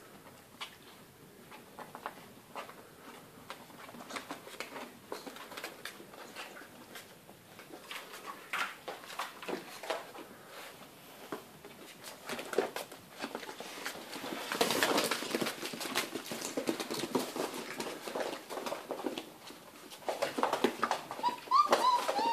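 About four-week-old Great Dane puppies scuffling and pattering about, many small scattered clicks and scrapes of paws and claws on a mattress and a parquet floor, busier in the second half. Near the end a high, wavering puppy whine.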